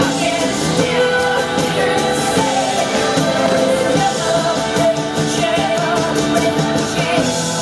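Recorded pop song with a lead singer over a steady beat.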